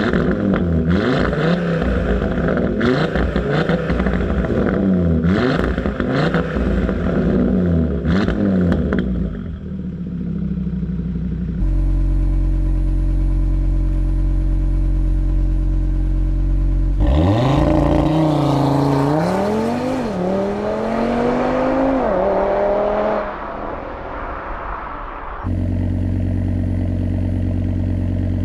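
Audi RS3's turbocharged 2.5-litre five-cylinder engine and exhaust, revved at standstill. It gives a series of quick revs, then a steady idle that starts abruptly about twelve seconds in, then several revs climbing higher, then idling again near the end.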